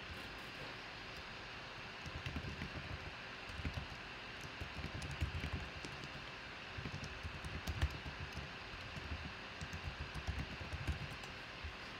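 Faint computer keyboard typing with irregular soft thumps on the desk, over a steady hiss.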